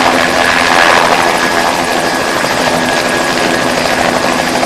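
Helicopter landing on a pad close by, its rotor and turbine making a loud, steady noise with a constant hum and a thin high whine.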